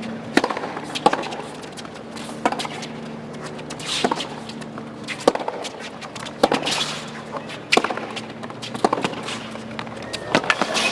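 Tennis ball being hit back and forth with racquets in a rally on a hard court, a sharp hit about every second and a half, with several quick knocks close together near the end.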